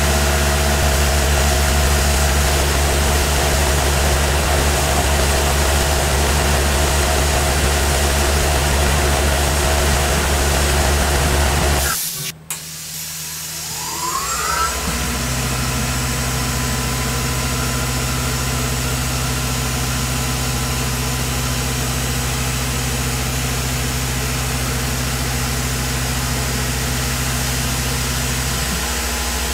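A Tormach PCNC 1100 CNC mill runs steadily while milling a 4140 steel muzzle brake held in its 4th-axis chuck. About twelve seconds in, the sound cuts off abruptly. A short rising whine follows, and the machine settles into a steady run at a different pitch.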